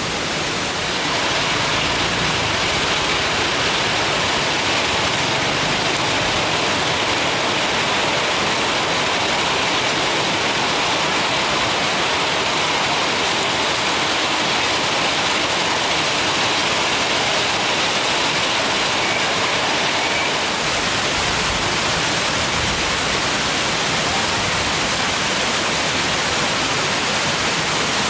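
Heavy rain falling steadily: a loud, even hiss that gets louder about a second in.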